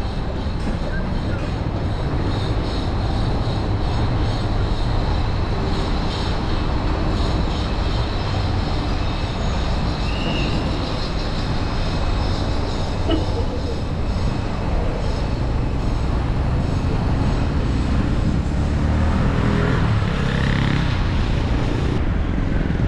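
Steady low rumble and noise of a moving vehicle, heard while riding in it.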